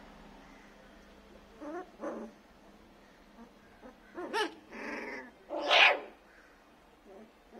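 21-day-old puppies barking in short calls, just learning to bark: a pair of calls about two seconds in, then a run of several calls, the loudest near six seconds in.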